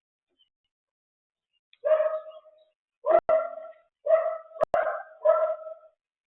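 A dog barking about five times in quick succession, starting about two seconds in, with a couple of sharp clicks among the barks.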